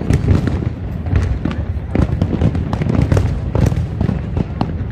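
Fireworks display: a dense, continuous series of bangs and crackles over a steady low rumble.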